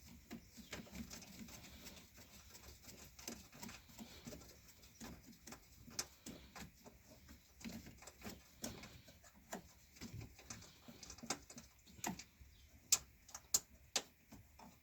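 Hand ratchet and socket clicking in short irregular runs while an 8 mm bolt is loosened by hand, with a few louder metallic clicks near the end.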